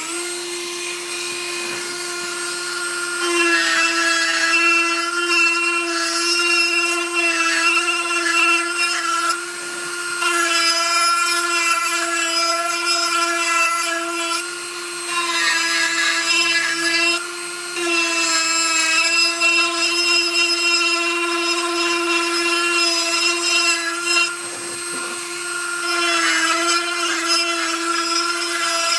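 Dremel rotary tool spinning a wood burr and grinding into oak: a steady high motor whine, with rougher, louder cutting noise that rises and eases off several times as the burr is worked into the wood.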